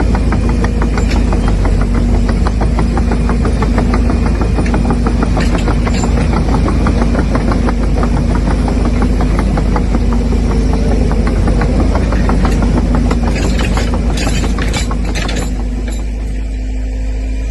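Diesel-type engine sound of an RC construction machine running steadily with a fast, even knock over a low rumble. It fades back to a steady hum near the end.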